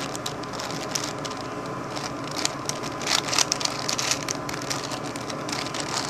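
5x5x5 Rubik's cube being turned by hand: quick, irregular plastic clicks and clacks as its layers rotate.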